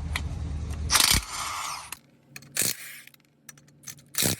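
Lug nuts being zipped off a car wheel: a loud tool burst about a second in, then two short, sharp metallic clacks later on.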